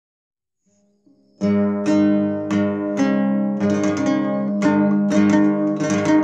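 Home-made cobza, a short-necked lute, played in a run of plucked strokes about twice a second, starting about a second and a half in, the notes ringing on over one another.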